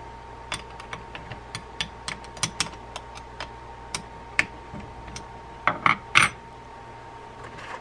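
Irregular small metallic clicks and ticks as the handle and handle nut of a Shimano Tyrnos 10II lever drag reel are worked with a small open-end wrench. A louder clatter comes about six seconds in as the wrench is set down on the wooden bench.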